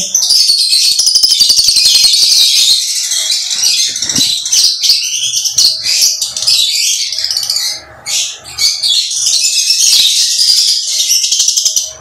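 Many lovebirds chattering and screeching together in a dense, shrill chorus, with a brief lull about eight seconds in.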